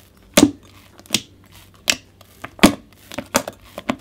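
Hands kneading and squeezing a clicky glossy slime made of PVA glue and deep conditioner. It gives a wet click or pop roughly every three-quarters of a second.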